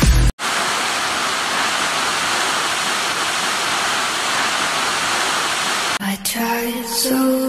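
Waterfall: a steady rush of falling water, which cuts off abruptly about six seconds in, giving way to a short pitched tone with a few sharp knocks.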